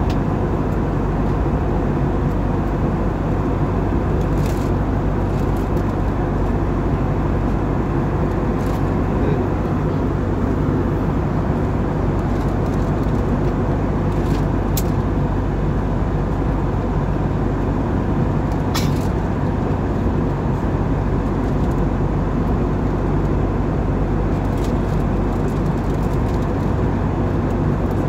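Steady low drone of an airliner cabin in cruise flight: engine and airflow noise heard through the cabin, with a few faint clicks.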